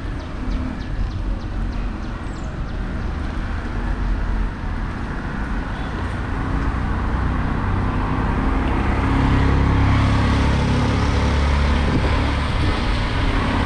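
Wind buffeting a bicycle-mounted microphone while riding, with tyres hissing on wet asphalt. It gets louder from about halfway through as the ride picks up.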